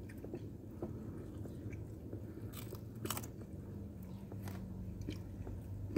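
People chewing chicken wings and pizza close to the microphone, with a few sharp mouth smacks a little past halfway, over a low steady hum.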